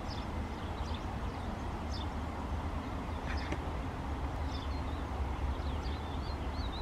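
Small birds chirping in short calls every second or so, with a warbling call near the end, over a steady low rumble.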